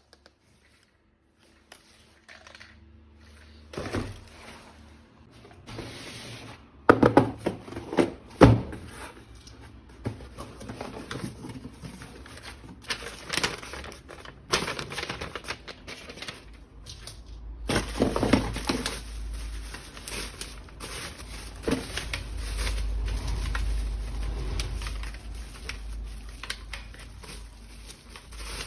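Toy and packaging being handled: irregular plastic clicks and knocks mixed with crinkling and rustling of wrapping. There is a steady low rumble in the second half.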